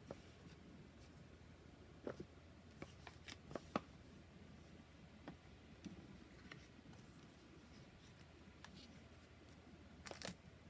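Faint handling of a boxed oracle card deck: scattered light taps and clicks of cards and card stock, in a cluster about two to four seconds in and again near the end, over a low steady hum.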